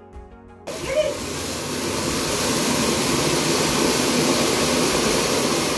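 Diwali firework spraying sparks with a loud, steady rushing hiss that starts abruptly just under a second in.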